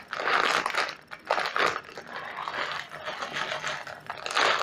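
Dry parboiled rice pouring from a plastic bag into a glass bowl: a grainy hiss of falling grains that comes in several surges, with the plastic bag crinkling in the hands.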